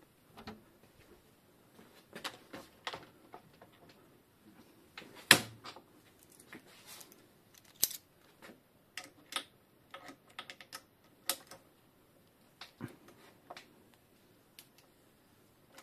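Irregular clicks and knocks of a RockShox Judy suspension fork being handled and clamped into a bike repair stand, with one sharp knock about five seconds in.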